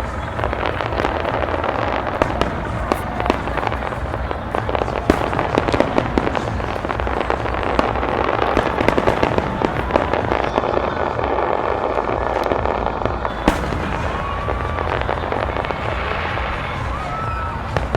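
Large fireworks display: a dense, unbroken barrage of bangs and crackles as many shells burst in quick succession, over a steady rumble.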